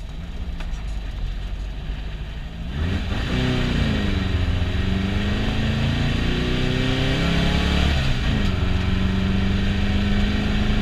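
Air-cooled 1641cc flat-four of a VW Beetle baja bug heard from inside the cabin, running low for the first few seconds, then revving hard from about three seconds in. Its pitch swings up and down, dips again near eight seconds, and then holds high and steady.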